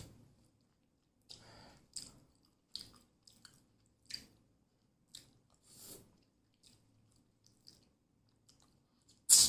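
A person chewing food close to the microphone: a string of short, irregular wet mouth sounds, with a much louder sharp sound near the end.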